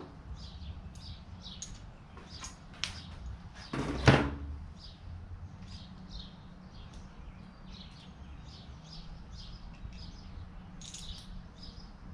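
Small birds chirping repeatedly in short high calls, with one loud clunk about four seconds in, like a metal tool or part being set down.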